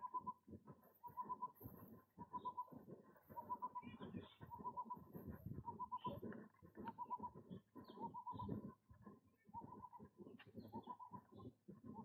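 A bird calling over and over, a short pulsed phrase repeated about once a second, fairly faint, over irregular low background noise.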